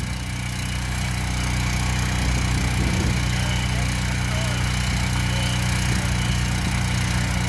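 Little Beaver hydraulic earth drill's small gasoline engine power unit running steadily, driving the hydraulic drive head as it turns a screw anchor into the ground. It grows a little louder over the first couple of seconds, then holds.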